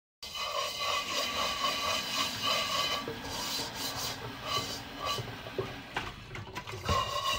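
Dishes being washed by hand at a kitchen sink: repeated rubbing, scraping strokes, with a few knocks about six seconds in.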